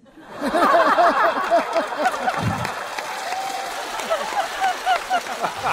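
Studio audience laughing and applauding, many voices at once, swelling up right after a punchline and carrying on steadily.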